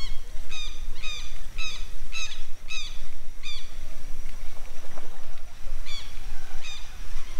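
A bird calling repeatedly with short, harsh, pitched calls, about two a second for three seconds, then twice more near the end, over a steady low rumble.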